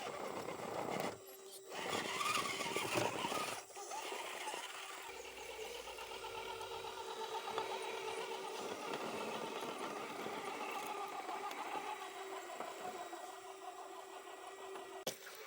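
Electric RC scale crawler running: a steady whine from its brushed motor and gearbox, with louder scrabbling noise over the first few seconds as it climbs over rough ground.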